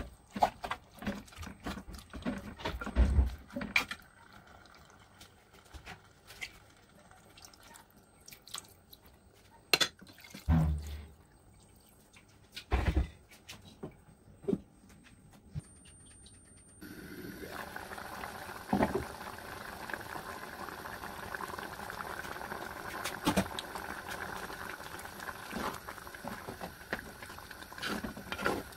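A metal spoon scraping and knocking in a clay pot as spiced chicken pieces and potatoes are mixed, then scattered knocks. Just over halfway through, a steady bubbling hiss of chicken and potato curry simmering in the clay pot starts abruptly, with the spoon clicking as it stirs.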